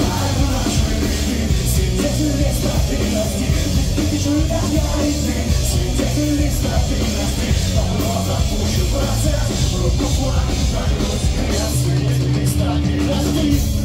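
Live pop-punk band playing loud rock music through the club's sound system.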